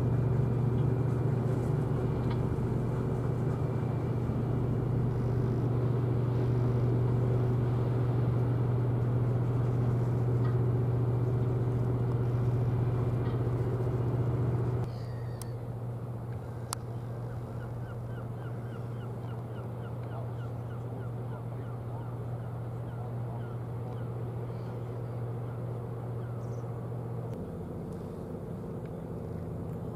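Steady low drone of a passing warship's machinery, the Bremen-class frigate FGS Lübeck (F214), heard across the water. About halfway through the drone drops abruptly in level and carries on fainter and steady.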